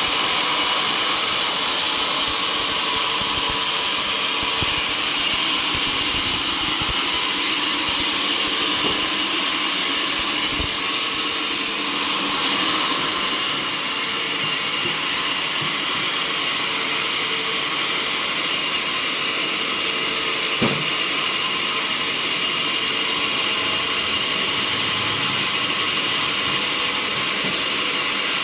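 Sawmill machinery running steadily, a loud even noise with high-pitched steady tones over it; a single knock about twenty seconds in.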